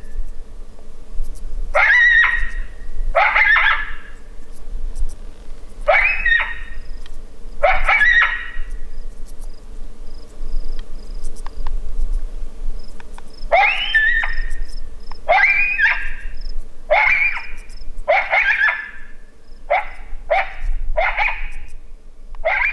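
Short, shrill animal cries, each about half a second long, repeated every one to two seconds with a pause of about five seconds midway.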